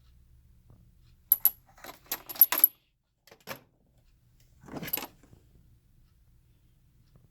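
Small hard plastic model train parts being handled: a quick run of sharp clicks and clatters a little over a second in, another click at about three and a half seconds, and a short rattle about five seconds in.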